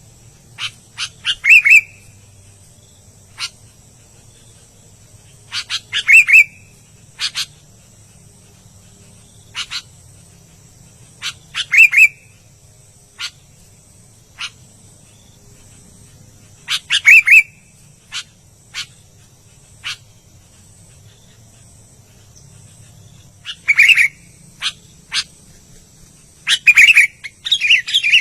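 Sooty-headed bulbul (kutilang) singing: short bursts of sharp chirps and brief bubbly phrases, repeated every few seconds with gaps between.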